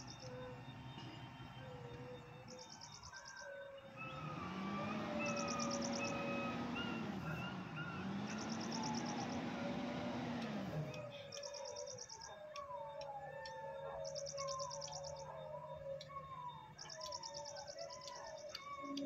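Birds chirping and calling, with a short high trill repeating about every second and a half. From about four to eleven seconds in, a louder rushing hiss joins them, carrying a low tone that rises and falls twice.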